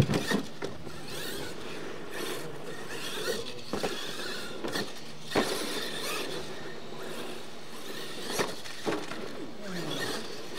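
RC monster truck driving on dirt, its motor whining and rising and falling in pitch with the throttle, with several sharp knocks as the truck bangs over the ramps.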